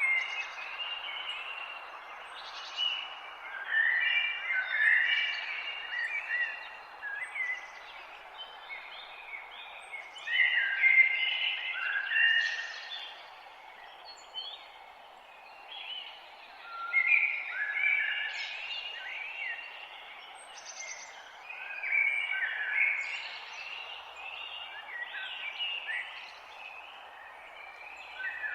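Morning chorus of woodland songbirds, with common blackbird and common chaffinch among the singers, several birds overlapping in phrase after phrase over a steady background hiss.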